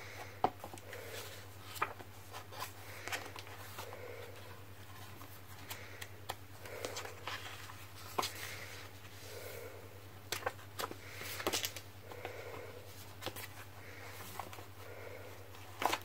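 Paper pages of a handmade notebook being turned and handled, with light rustles and many small, sharp clicks.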